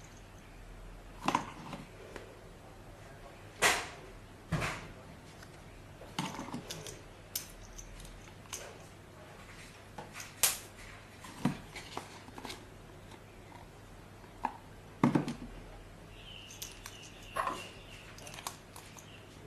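Irregular clicks and knocks, a dozen or so at uneven intervals, from small hard objects being handled, with a faint high whine near the end.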